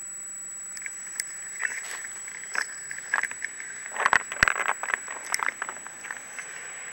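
Irregular clicks, knocks and rattles of a camera rig mounted on a paintball gun as it is carried and swung about, loudest about four seconds in. Under them a steady hiss with a thin high whine.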